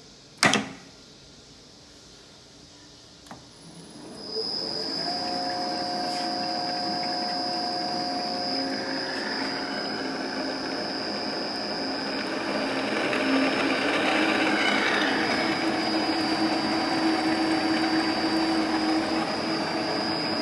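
Old Enterprise metal lathe being started: a sharp clack about half a second in, then after a few quiet seconds the spindle drive spins up with a rising whine, run from a variable-frequency drive, and settles into a steady mechanical whir with a high whine. The whir grows louder about two-thirds of the way through.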